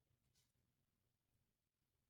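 Near silence, with one very faint tick under half a second in.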